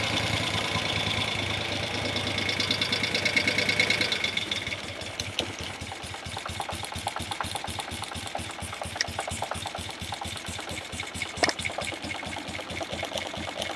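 1971 Moto Guzzi Ambassador V-twin engine running during carburettor tuning. It holds a higher, steadier speed for about four seconds, then drops to a slower idle with an even beat of firing pulses.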